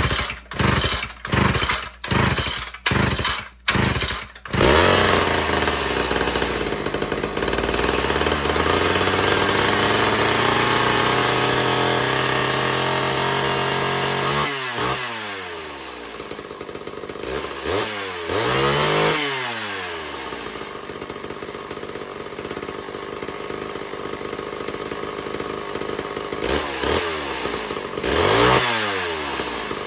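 Homelite Super XL two-stroke chainsaw being cold-started by hand: several quick pulls on the starter cord, then the engine catches about four seconds in. It runs with its speed climbing slowly, is revved down and up a few times, and settles to an idle.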